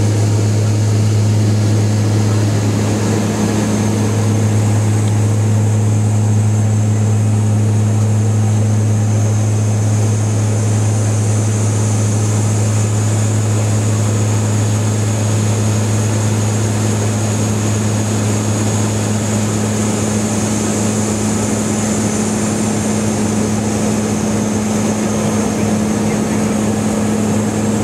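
Twin Garrett TPE331 turboprops of a BAe Jetstream 32 heard in flight after take-off: a steady, loud propeller drone with a low hum and a thin high turbine whine above it, unchanging throughout.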